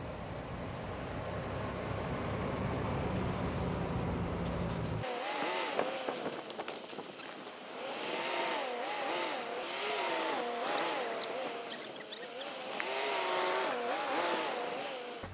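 Nissan Patrol's 4.8-litre straight-six engine running with a deep, steady rumble while the SUV works through deep snow. About five seconds in, the rumble cuts off abruptly and a wavering pitched sound takes over, rising and falling about once a second.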